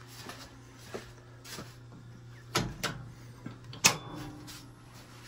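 Footsteps and handling knocks, then a few sharp clicks in the second half, the loudest about four seconds in: a circuit breaker being switched at a home breaker panel. A low steady hum lies underneath.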